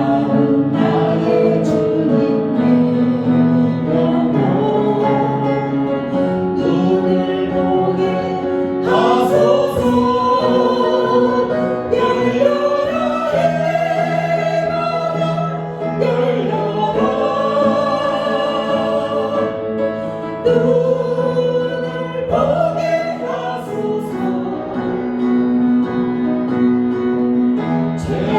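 Worship singing: a group of voices sings a slow praise song in long held phrases over instrumental accompaniment.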